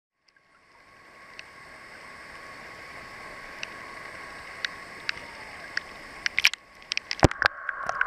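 Underwater sound picked up by a camera in its waterproof housing: a steady hiss that fades in over the first couple of seconds, with scattered sharp clicks and a burst of louder clicks and knocks in the last two seconds.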